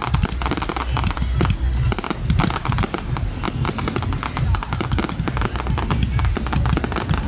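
Fireworks display: a dense, continuous run of shell bursts, with sharp bangs and crackles over deep booms.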